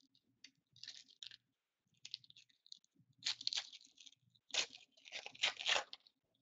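A Black Diamond hockey card pack being torn open, its wrapper crinkling and tearing in a series of short rustling bursts, loudest about halfway through and again near the end.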